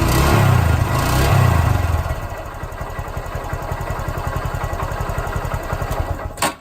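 Honda Grom's single-cylinder engine revved for about two seconds, then dropping back to an even, rapid idle beat; a sharp click near the end, after which it cuts off. The owner suspects the abnormal engine noise comes from the cam chain, though the cause is not yet confirmed.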